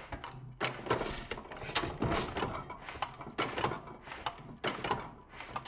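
1917 Fuller & Johnson Model N hit-and-miss engine running, with a string of irregular mechanical clicks and knocks from its igniter trip and valve gear.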